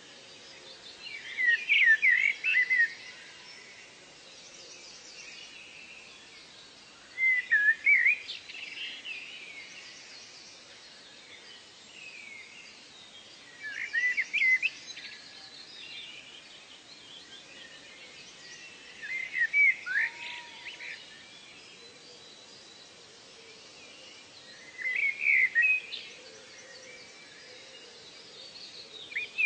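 Birdsong: a bird repeats a short phrase of rapid chirps about every six seconds, over a faint steady background hiss.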